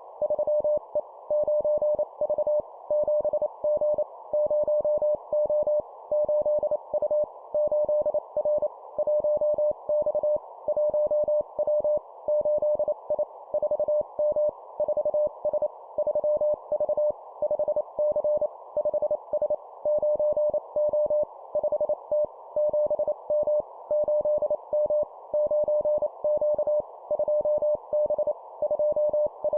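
Morse code (CW) sent at 25 words per minute: a single steady mid-pitched tone keyed on and off in quick dots and dashes, in short groups separated by brief pauses, over a constant hiss.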